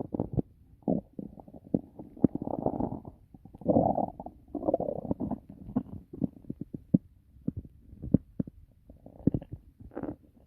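A person's stomach growling, really loud: a run of irregular short pops and gurgles, with a few longer drawn-out gurgles in between.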